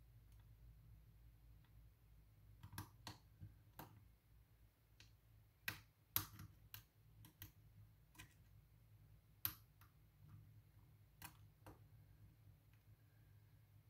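Light, irregular metallic clicks of a lock pick and tension wrench working the pins of a pin-tumbler challenge lock. The clicks come in small clusters, loudest around the middle and again about two-thirds through.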